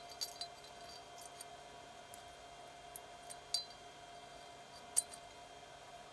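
Scattered light metallic clinks and ticks as small engine parts and the cam chain are handled, the loudest about five seconds in, over a faint steady hum.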